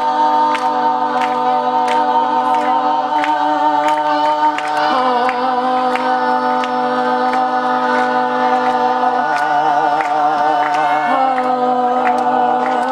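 Congregation singing, holding the long final 'hallelujah' as a sustained chord in several parts with wavering vibrato. The lower notes shift about five seconds in. Sharp ticks keep an even beat of a little under two a second.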